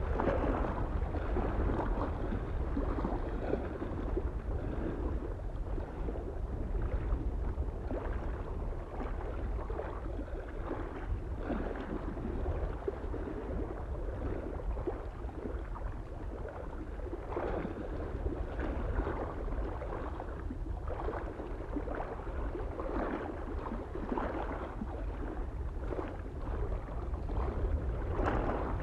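Small waves lapping and splashing irregularly against a lake shore, with a steady low rumble of wind on the microphone underneath.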